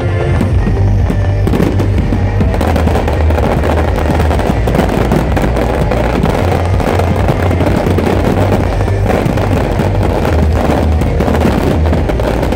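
Aerial firework shells bursting and crackling in rapid, overlapping succession, over loud music with a heavy bass.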